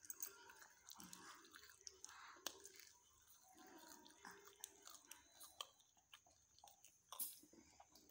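Faint chewing and crunching of food, with scattered small clicks and mouth noises and soft whispering close by.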